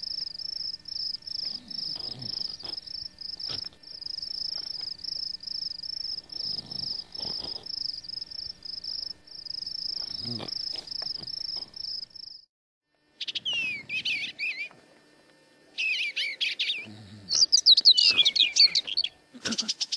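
Night insects chirping in a steady, rapid high trill, with a few soft rustles. The chirping stops about twelve seconds in, and after a brief silence birds sing in quick chirps and sweeping whistles. A few sharp clicks follow near the end.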